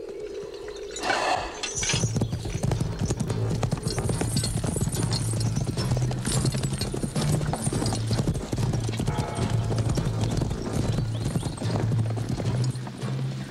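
Horses' hooves clattering in a quick, continuous patter over music, whose low held notes change every second or so.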